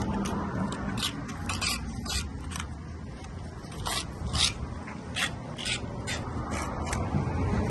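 Short, irregular scraping strokes of a hand tool working Basecrete coating into fiberglass mesh on a concrete surface, about two strokes a second, over a low steady rumble.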